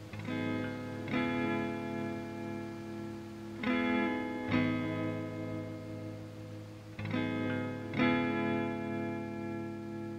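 Background music: guitar chords ringing out, a new pair of chords struck about every three and a half seconds.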